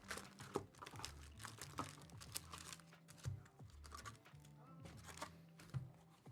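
Trading-card pack wrappers crinkling and tearing open, a run of short sharp crackles, over quiet background music.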